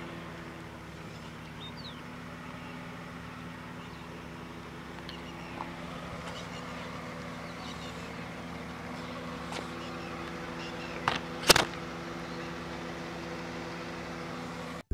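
Car engine idling steadily, then a sharp crack and a louder one about half a second apart near the end as the tyre bursts a watermelon.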